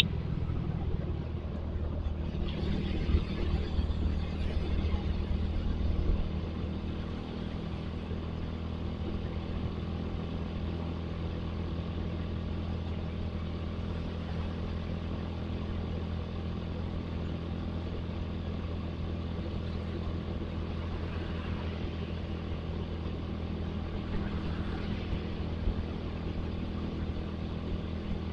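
Motorcycle engine, likely a Suzuki Satria FU, running steadily while riding in road traffic. The first few seconds are louder and rougher before it settles into an even hum.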